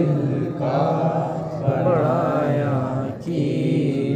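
A naat sung in long, wavering melismatic phrases, with a short break about three seconds in before the next phrase begins. A steady low hum runs underneath.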